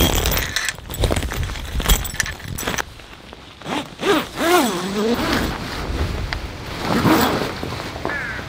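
A zipper on a car awning's fabric side wall is pulled in uneven strokes, and its buzz rises and falls in pitch with the speed of the pull about four to five seconds in. Around it are the rustle of stiff tarp fabric and a few sharp clicks.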